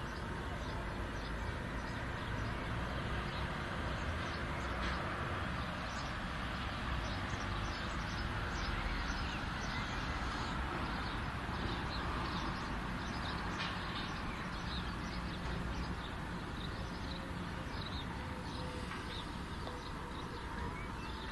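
Many short, high bird chirps over a steady low rumble and hiss.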